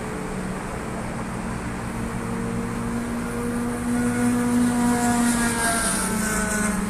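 Engine of a passing vehicle, growing louder and then dropping slightly in pitch as it goes by, over a steady outdoor hum.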